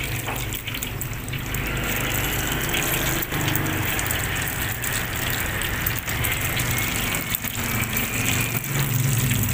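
Egg-dipped potato perkedel patties sizzling and crackling in hot oil in a wok as they are dropped in one after another, with a steady low hum underneath.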